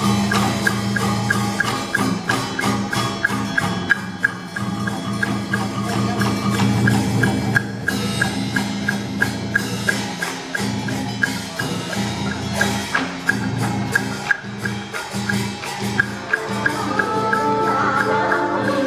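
Traditional Vietnamese water puppet theatre music: a steady clacking percussion beat, about three strokes a second, over a low sustained layer, with a melody coming in near the end.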